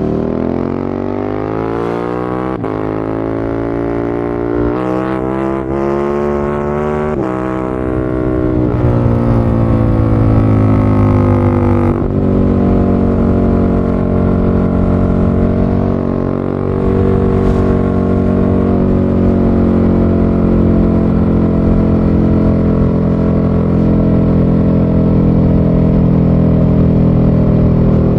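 KTM 1290 Superduke R V-twin through an Akrapovic titanium slip-on and decat pipe, accelerating hard with several brief cuts in the engine note as it rises in pitch, then easing off and holding a steady, loud cruise for the second half.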